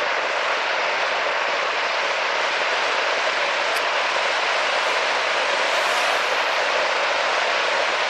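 Waterfall pouring over a rock face into a pool, a steady rushing noise.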